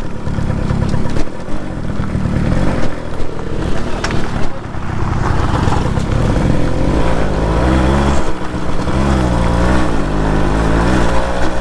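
Suzuki Max 100's two-stroke single-cylinder engine running as the bike is ridden, under wind rumble on the microphone. From about six seconds in, the engine note comes through clearly and wavers up and down with the throttle.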